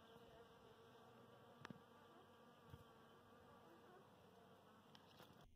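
Faint, steady buzzing of many honey bees foraging in a blooming golden chain tree, the massed hum sounding like a swarm. A brief sharp tick comes about a second and a half in, and the buzzing cuts off suddenly near the end.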